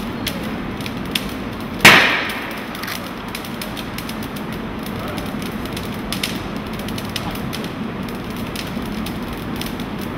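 Furnished room fire burning steadily, with scattered crackles and pops. One loud, sharp crack about two seconds in rings out in the large hall.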